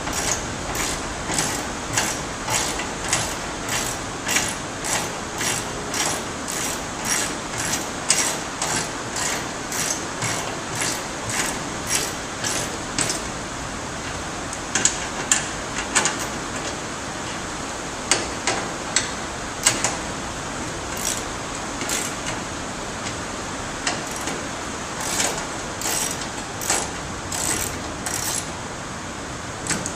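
Ratchet wrench clicking as M8 flange bolts are tightened into the back of a TV to fix the mount's VESA adapters: a regular click about two a second through the first half, then scattered clicks.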